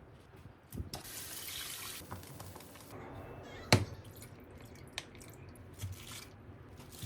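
Kitchen tap water running for about a second, then one sharp knock a little past the middle, with a few lighter knocks of kitchen work around it.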